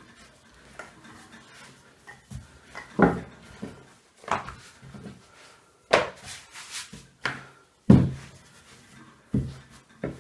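Wooden rolling pin rolling out puff pastry on a wooden board. From about three seconds in come irregular wooden knocks and thuds, roughly one a second, as the pin bumps and is set down on the board.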